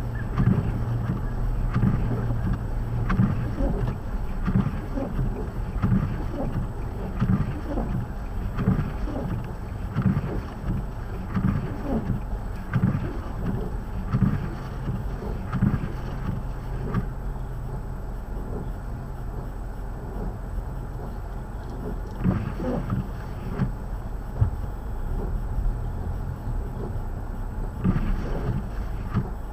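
A steady low motor rumble, with wind gusts buffeting the microphone in irregular thumps during a blizzard.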